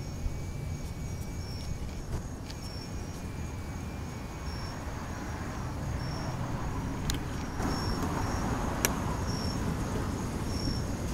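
Field crickets chirping at night, short high chirps about once a second, over a steady high insect trill that stops about four seconds in. Wind rumbles on the microphone throughout and swells in the second half.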